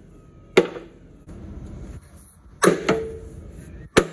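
Four sharp metal strikes of a hammer on a steel plate: one about half a second in, two close together near the middle, the second ringing briefly, and one near the end. The plate has been dented in over its bolts, and the blows are knocking the metal back to reach them.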